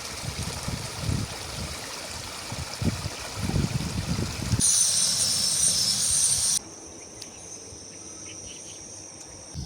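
Stream water running, then, after a sudden cut about four and a half seconds in, a steady high-pitched chorus of insects, which drops in level at another cut about two seconds later.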